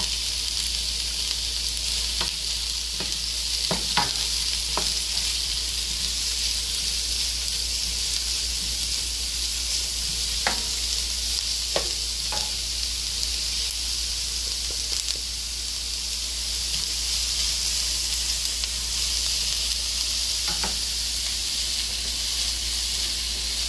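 Chopped onion frying in hot oil in a skillet, a steady sizzle, stirred with a spoon that clicks against the pan a few times.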